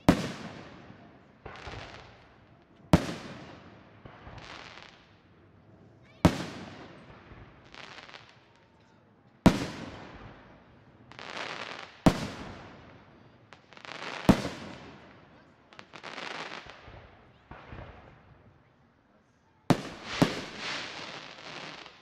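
Aerial firework shells bursting, about eight sharp bangs two to three seconds apart, each trailing off in a rolling echo, with softer bursts in between. After a short lull, two bangs come close together near the end.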